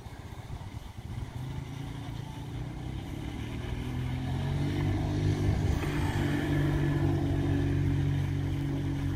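A motor vehicle's engine, growing louder over the first few seconds and then running steadily close by.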